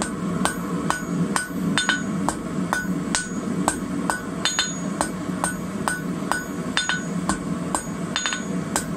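Hand hammer striking glowing-hot rebar on a steel anvil in a steady rhythm of about two blows a second, each blow ringing briefly, as the hot tip is spread flat to shape a snake's head.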